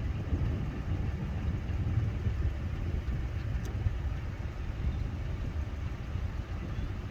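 Steady low rumble of a running car, with no distinct events.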